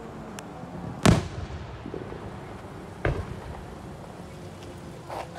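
Aerial fireworks bursting: a loud sharp bang about a second in, a smaller bang about three seconds in, and a fainter one near the end, each trailing off briefly.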